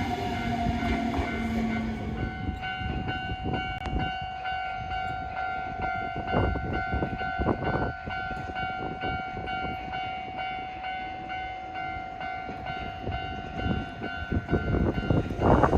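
Railway level-crossing alarm ringing in a steady repeating pattern while a train runs by, with a few clicks of wheels over rail joints. A gust of wind hits the microphone right at the end.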